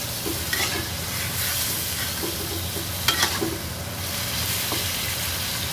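Prawns frying and sizzling in a wok while a metal spatula stirs them, scraping and knocking against the pan now and then, most sharply about three seconds in.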